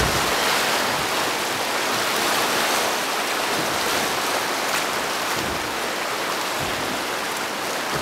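River water rushing past a drift boat as it rides through a rapid: a steady, even rushing hiss.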